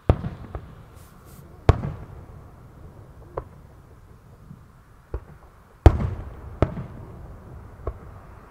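Aerial firework shells bursting: about eight sharp bangs at uneven intervals, each followed by a rolling low rumble. The loudest bang comes about six seconds in.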